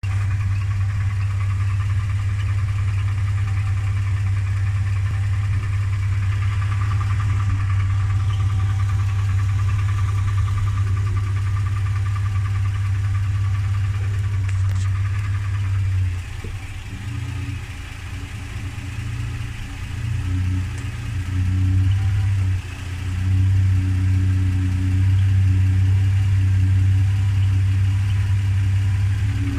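Lexus LX450 / Toyota Land Cruiser engine idling with a knocking sound from the engine bay. The owner suspects the power steering pump, since the knock goes away when the wheels are turned. About halfway through, the steady low drone drops and then comes back unevenly.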